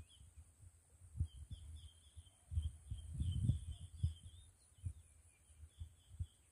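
Wind buffeting the microphone in uneven gusts, strongest in the middle. Over it a bird chirps in quick runs of short high notes, and a steady high insect drone runs underneath.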